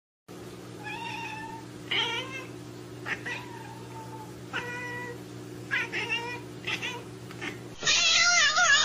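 Domestic cat meowing repeatedly, about seven short meows, over a steady low hum. Near the end the sound cuts to a louder, wavering cry.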